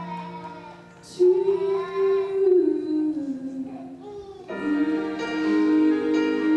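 Background music: a song with a high singing voice over sustained instrumental notes, a new phrase coming in about a second in.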